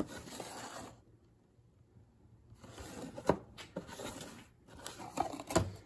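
Cardboard model-kit box being handled and slid over a wooden tabletop: rustling scrapes in two spells with a brief pause between, and a couple of sharp taps as the box is set down or knocked.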